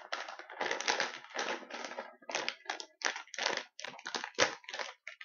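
Kettle Brand potato chip bag crinkling and crackling as it is handled and pulled open: a run of irregular, closely spaced crackles with short pauses.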